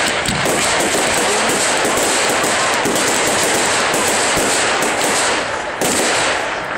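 Fireworks going off in a dense, continuous barrage of rapid crackling bangs. Near the end the barrage eases briefly, then a sharp louder bang sets it going again.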